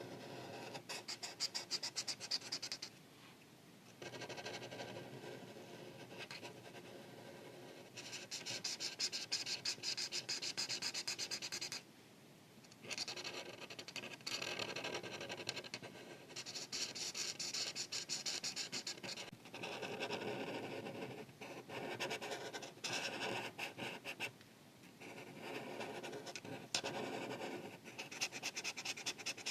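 Art marker tip scratching across paper in quick back-and-forth coloring strokes. The strokes come in runs of a few seconds, broken by brief pauses.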